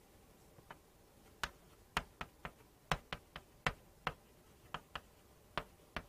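Chalk tapping and clicking against a chalkboard while characters are written: a quick, irregular string of sharp little taps, about fifteen of them.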